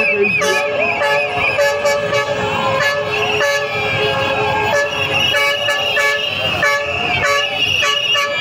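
Several vehicle horns honking, some held and some in short repeated toots, over the voices of a crowd.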